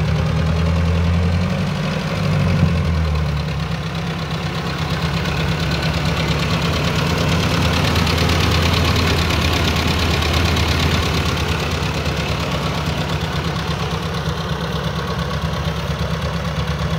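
Ford 801 Powermaster's four-cylinder gasoline engine running steadily, with a brief change in engine pitch about two seconds in.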